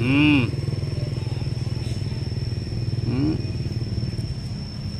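Motorcycle engine idling steadily. A person's voice calls out briefly twice, at the start and about three seconds in.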